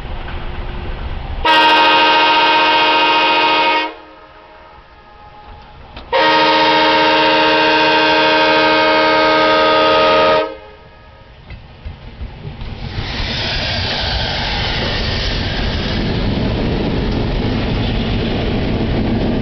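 Diesel locomotive's multi-note air horn sounding two long blasts at a railroad crossing, the second longer than the first, each cutting off abruptly. The locomotive and its plow then pass close by, with loud, steady engine and wheel noise.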